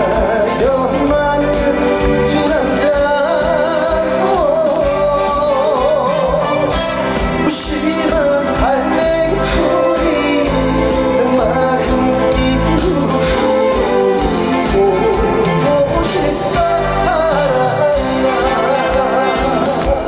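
Live trot music: a singing voice with a wide vibrato over a full band backing with a steady beat.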